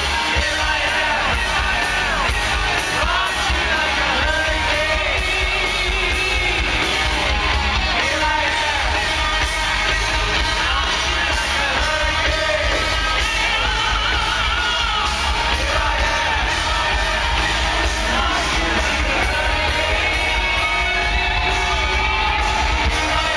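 Hard rock band playing live at full volume: electric guitars, heavy bass and a lead singer's vocal, with the crowd yelling along, heard loud and bass-heavy through a handheld camera's microphone in a large hall.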